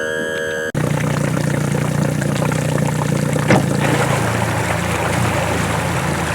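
A held chord of steady tones cuts off under a second in. Then a boat's motor runs steadily under a rushing noise.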